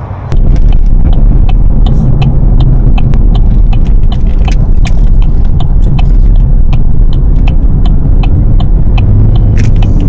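Loud microphone rumble, like wind buffeting or handling noise on a handheld camera, with a quick irregular run of small clicks and rustles. It cuts in abruptly and stops just as abruptly at the end.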